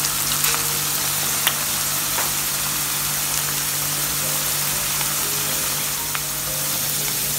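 Potato wedges shallow-frying in vegetable oil in a stainless steel pan: a steady sizzle with a few scattered small pops.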